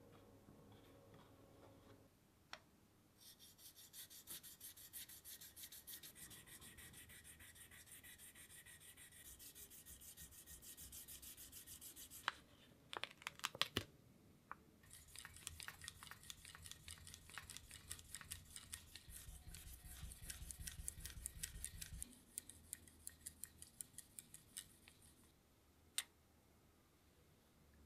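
Quick, even back-and-forth scrubbing strokes by hand on a metal part, in two long runs. In the pause between them come a few sharp knocks and clicks, and there is one more sharp click near the end.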